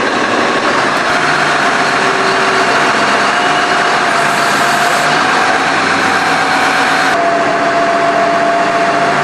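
Hyster engine-installer lift vehicle running steadily at idle, a constant engine rumble with a steady whine on top.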